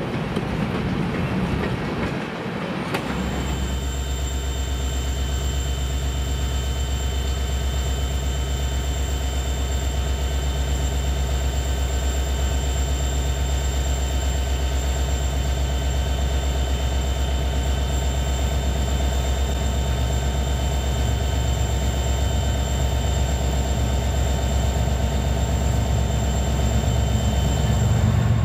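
Freight cars rolling past with wheel clatter, cut off about three seconds in by the steady running of a Union Pacific diesel locomotive's engine. The engine holds one even note, with a thin high whine above it.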